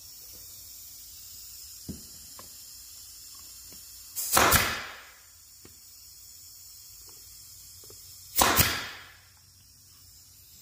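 Pneumatic brad nailer firing twice, about four seconds apart, driving nails into the joints of a pine-board frame: each shot a sharp snap that trails off over about half a second. A couple of light taps come before the first shot.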